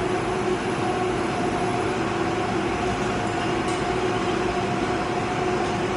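Industrial machinery running, a conveyor belt and robot arm cell, giving a steady hum with a constant droning tone and no distinct impacts.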